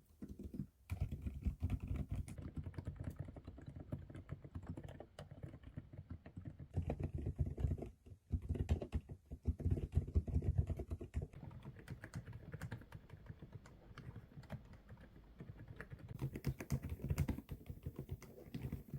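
Typing on mechanical keyboards, a fast run of keystroke clacks, in several short takes that change in tone and brightness from one to the next as different key switches are demonstrated.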